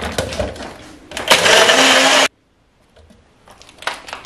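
Electric blender running for about a second as it blends a milk drink, then cutting off abruptly. Knocks and clatter come just before it starts, and a few faint knocks follow.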